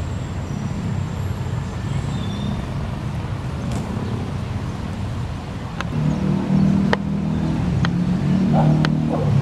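Urban traffic ambience: a steady low rumble of vehicles, with an engine's low hum growing louder about six seconds in and a few sharp clicks.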